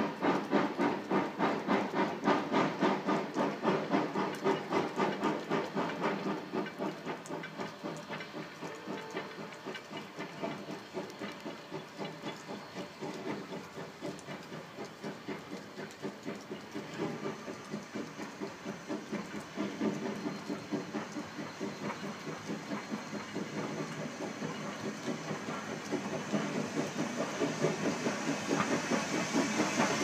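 Narrow-gauge steam locomotive D&RGW 346, a 2-8-0, working steam with a steady exhaust chuff of about three beats a second over a hiss of steam. The chuffing eases off a few seconds in and then grows louder again near the end as the engine draws close.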